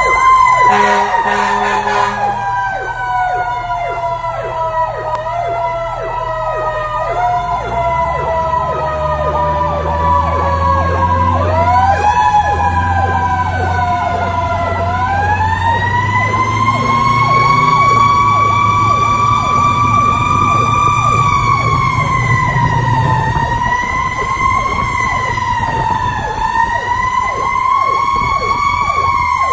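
Fire truck siren running while under way: its pitch slides slowly down for about ten seconds, then is wound sharply back up twice and held high, wavering, over a steadier rapidly pulsing siren tone. A brief low horn blast sounds near the start, and the truck's engine rumbles underneath.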